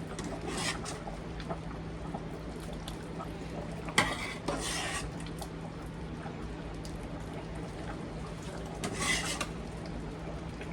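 A ladle clinking and scraping in a pot of chicken noodle soup as it is dished into a bowl. There is a sharp clink about four seconds in, and short splashy pours of broth then and again about nine seconds in, over a steady low hum.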